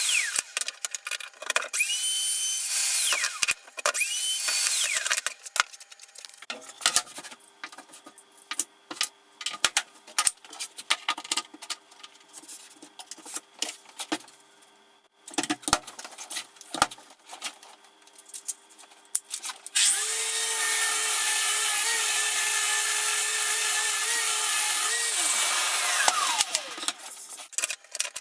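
Power drill running in several short bursts, each spinning up and stopping, followed by scattered clicks and knocks of work being handled. About twenty seconds in, a louder power tool runs steadily for about five seconds, then winds down.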